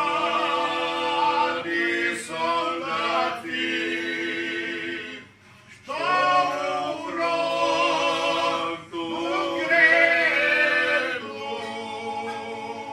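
A few men singing a Croatian folk song a cappella in parts, on long held notes. They break for breath about five seconds in, then start the next phrase.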